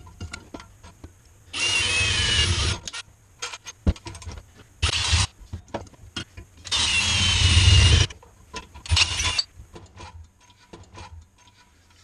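Cordless drill boring holes through flat metal bracket strips: two runs of a little over a second each with a whining pitch, a couple of shorter bursts between them, and clicks of the parts being handled.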